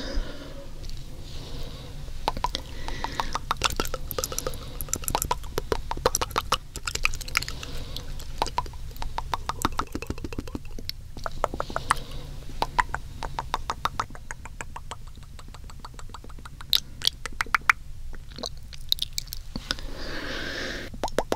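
Close-up wet mouth sounds: rapid runs of tongue clicks and lip smacks, many per second, coming in bursts with short breaks.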